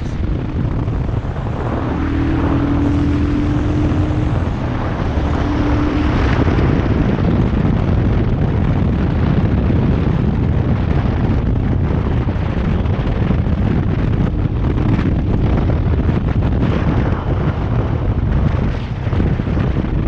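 Motorcycle engine running steadily while riding on a road, with heavy wind rushing over the rider-mounted microphone.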